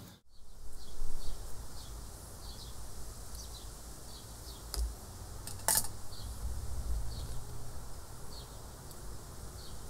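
Outdoor ambience: a short, high chirp repeats about twice a second over a low, steady rumble, with two sharp clicks about halfway through.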